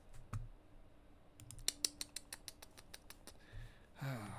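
A quick run of about a dozen light, sharp clicks in under two seconds, from working a computer at a desk, with a brief low vocal sound near the end.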